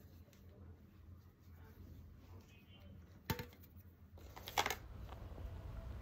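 Makeup items being handled: a sharp click a little over three seconds in, then a brief clatter of small hard clicks about a second later, over a low steady hum.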